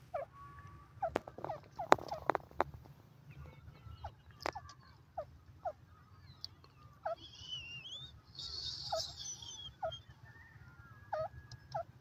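Grey francolin giving short calls, repeated about every second, over a low steady rumble. There are a few sharp clicks a second or two in, and a brief burst of higher chirping about two-thirds of the way through.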